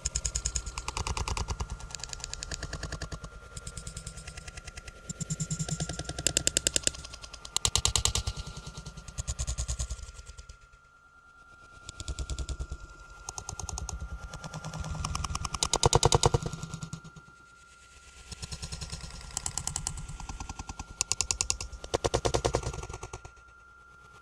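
Rapid, dense clattering in irregular waves that swell and fade, loudest about two-thirds of the way in, with brief lulls between, over a faint steady high tone.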